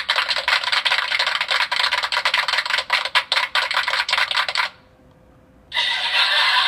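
Sound effects machine playing its effects through a small speaker: a dense, rapid clattering effect that stops about four and a half seconds in, then after a second's pause a steadier hissing effect starts.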